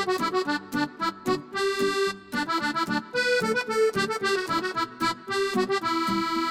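Instrumental children's song melody led by an accordion-like reed tone, playing a bouncy tune of short notes.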